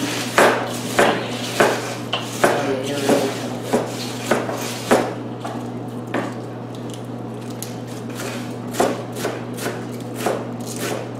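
Knife chopping vegetables on a cutting board: separate chops about every half second, a lull in the middle, then a quicker run of chops near the end, over a steady low hum.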